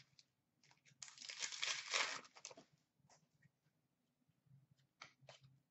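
Foil wrapper of a 2015-16 Upper Deck Series 2 hockey card pack being torn open: a crinkly tearing that starts about a second in and lasts about a second and a half. A few faint ticks of cards being handled follow.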